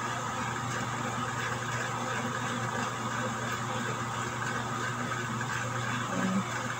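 Steady low machine hum with a constant hiss, and a short low sound about six seconds in.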